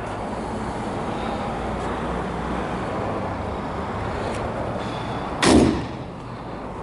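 Dual-cam, carbureted straight-six of a 1973 Mercedes-Benz 280 idling steadily with the hood up. A short loud thump cuts in about five and a half seconds in.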